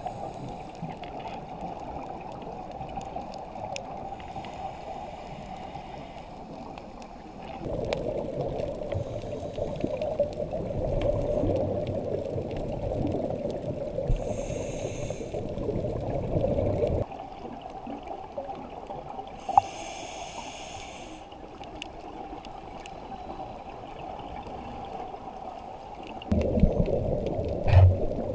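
Muffled underwater water noise, stepping abruptly louder and quieter a few times. Roughly halfway through and again a few seconds later comes a short burst of bubbling, typical of a scuba diver exhaling through a regulator.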